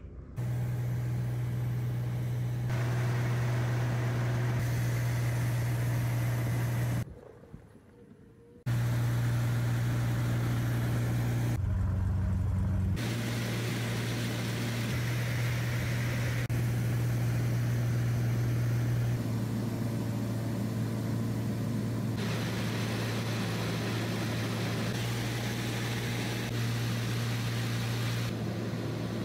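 Steady low drone of a light single-engine propeller aircraft in flight, heard inside the cabin. It is a string of clips that change abruptly every few seconds, and it drops out for about a second and a half about seven seconds in.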